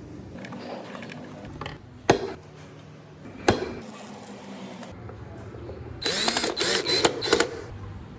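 Two sharp clicks, then about a second and a half of dense ratchet-like clicking clatter near the end.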